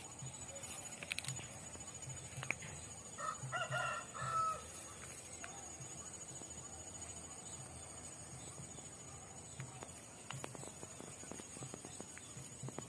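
A rooster crowing once, about three seconds in, over a steady high-pitched hiss and a few faint clicks.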